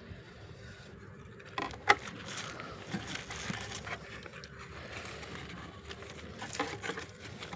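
Rustling and scraping handling noises, with a few sharp clicks about a second and a half in and again near the end.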